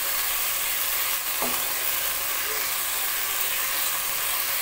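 Spice paste with yogurt sizzling steadily in hot oil in a non-stick pan, stirred and scraped with a wooden spatula. This is the bhuna stage: the masala is being fried down until the oil separates.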